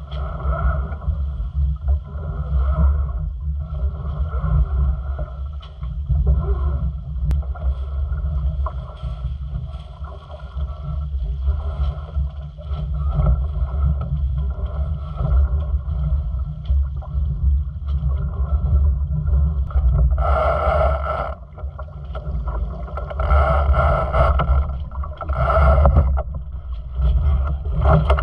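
Pogo 8.50 sailing yacht under way: a steady low rumble of wind buffeting the microphone over water rushing along the hull. A few brief, louder, hissier bursts come about two-thirds of the way through.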